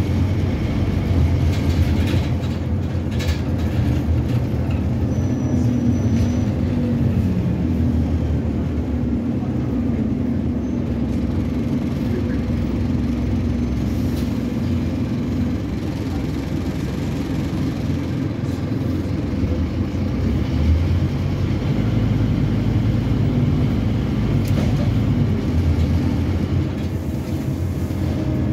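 Scania N270UD Omnicity double-decker bus heard from inside the passenger saloon while under way: its five-cylinder diesel engine and drivetrain give a steady low rumble, with a humming note through the middle of the stretch.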